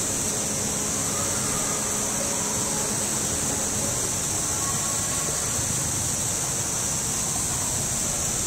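Insects droning at a steady high pitch without a break, over a low background rumble. A faint low hum fades out about halfway through.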